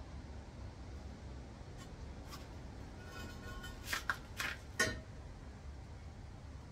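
Metal gearbox parts being handled, giving a few light clinks and knocks with a faint ring. Three come close together about four to five seconds in, over a low steady hum.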